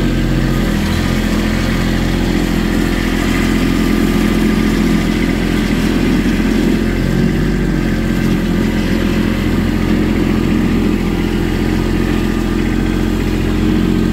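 Kubota BX-series compact tractor's three-cylinder diesel engine running steadily, heard close up from the operator's seat as the tractor drives along.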